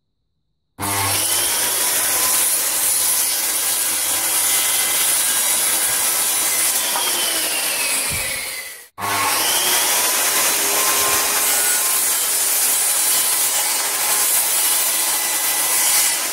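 Handheld circular saw running and crosscutting wood, a loud cutting noise over the motor's high whine. The whine drops in pitch toward the end of the first cut, the sound breaks off abruptly just before halfway, and a second cut follows.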